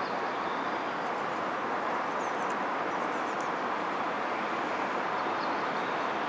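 Steady rushing outdoor background noise with no distinct event, and a few faint, brief high chirps scattered through it.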